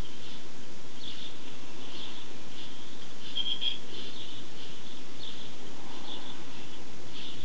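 Small birds chirping, short calls repeated every half second or so, over steady background noise.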